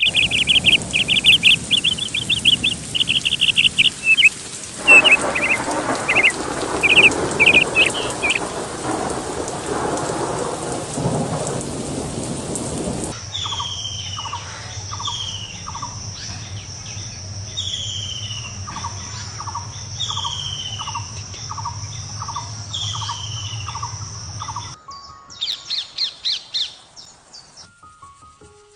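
Birds chirping and calling, from several recordings cut together. First comes rapid high chirping over a rushing, rain-like noise. It cuts suddenly to repeated descending whistles with short lower notes over a steady hum, and then to a quick burst of chirps.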